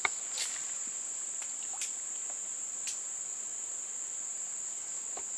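Steady high-pitched drone of insects in the swamp forest, with a sharp click at the very start and a few faint ticks.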